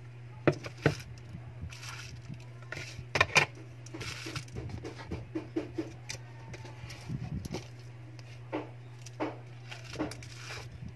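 Hands handling phone LCD screen assemblies and parts on a bench: sharp clicks and taps as the hard panels are picked up and set down, with rustling of plastic bubble wrap between them. The loudest taps come about half a second, one second and three seconds in.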